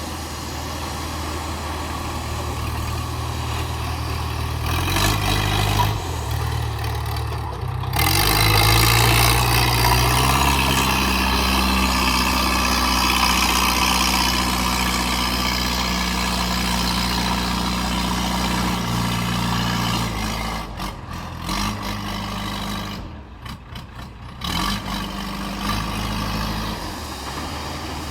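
JCB 3DX backhoe loader's diesel engine working, its pitch stepping up and down as it takes and sheds load. About eight seconds in it revs up and runs loudest, with a harsh rushing noise over it, then it eases off after about twenty seconds.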